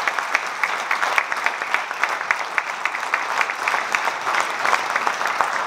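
An audience applauding: many people clapping steadily.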